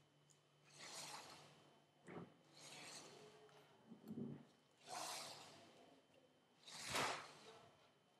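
Pages of a spiral-bound sketchbook being turned and handled: soft paper swishes and rustles about every two seconds, with a small click and a light thud, the loudest swish near the end.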